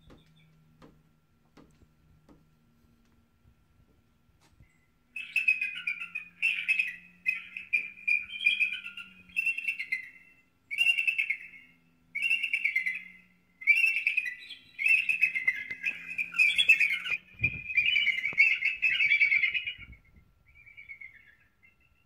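Recorded bird calls played through an AOMAIS portable Bluetooth speaker as a bird deterrent: a series of about a dozen loud, harsh chirping calls, starting about five seconds in and stopping near the end.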